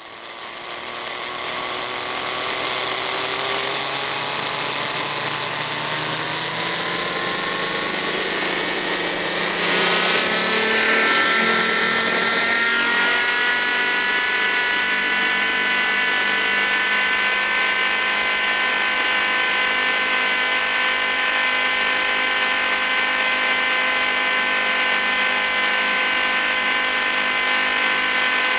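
Radio-controlled model helicopter's motor and rotor drive spooling up, heard close up from under the fuselage. The whine rises in pitch for about the first twelve seconds, then holds a steady high whine at flying speed.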